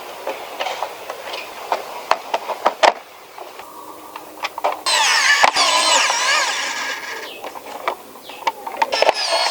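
Hard plastic and metal model parts clicking and tapping as they are handled, then a couple of seconds of loud, wavering squeaky rubbing about halfway through, followed by a few more clicks.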